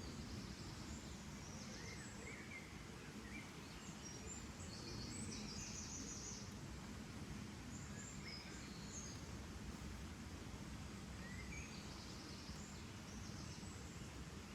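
Outdoor nature ambience: a steady low background hiss and rumble, with small birds giving short high chirps every second or two, clustered around four to six seconds in and again near the end.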